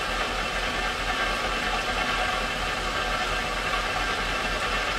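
Lapidary polishing machine running steadily: a continuous whir and hum from its motor and spinning lap plate.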